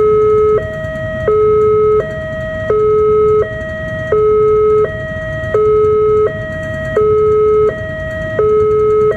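Railway level-crossing warning alarm sounding its two-tone electronic signal, a higher and a lower tone taking turns about every 0.7 seconds with the lower tone louder, warning that a train is approaching. A steady low rumble runs underneath.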